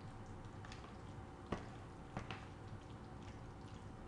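Hands mixing a creamy fruit salad in a plastic bowl: soft wet squishing with scattered small clicks, the sharpest about a second and a half in, over a steady low hum.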